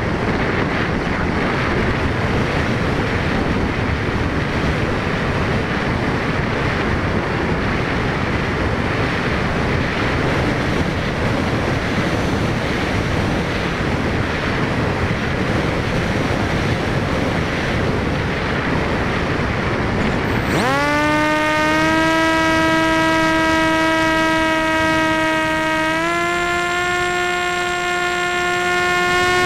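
Wind rushing over the onboard camera's microphone on a small electric RC plane. About two-thirds of the way in, the motor and propeller spool up with a sudden rising whine that settles into a steady drone. A few seconds later the drone steps up in pitch again.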